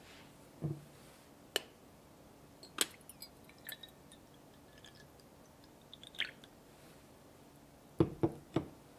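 Tea poured from a glass teapot into a double-walled glass mug: a few sharp clinks of glass, then small trickling and dripping ticks. Near the end the teapot is set down on a wooden tray with three quick knocks, the loudest sounds.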